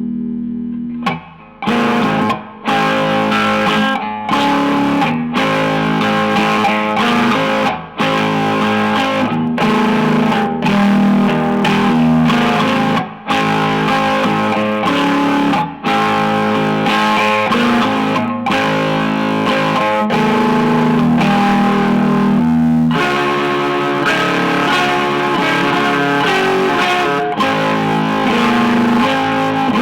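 Electric guitar being played, sustained notes and chords with several brief breaks between phrases.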